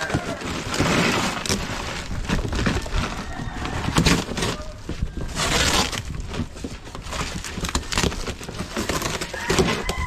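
Plastic parcel wrapping being torn open and crumpled, a dense run of irregular crackles and knocks.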